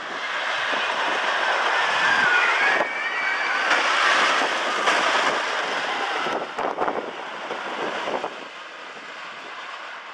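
Zippin Pippin wooden roller coaster train running over its track, a loud rumbling roar with high wavering squeals in the first few seconds. The roar drops away about six seconds in and fades further after eight seconds as the train moves off.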